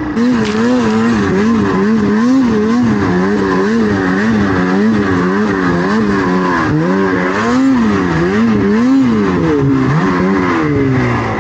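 Snowmobile engine revving up and down in quick throttle pulses, its pitch rising and falling about twice a second, with a few slower, longer swings near the end.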